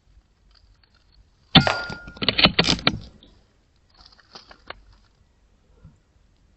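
A .22 air rifle shot: one sharp report about a second and a half in, with a short metallic ring. Straight after comes about a second of rapid loud clicks and clatter, and a few faint clicks follow about a second later.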